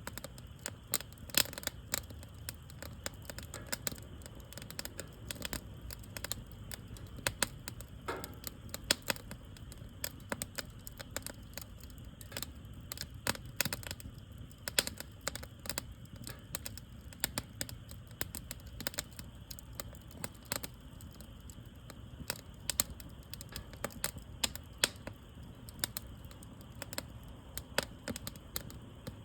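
Wood fire crackling, with frequent irregular sharp pops and snaps over a low steady rush.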